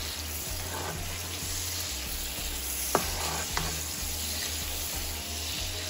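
Sliced bell peppers, onion and tomato sizzling in oil in a non-stick frying pan as they are stirred with a spatula. Two sharp clicks, about half a second apart, come around the middle.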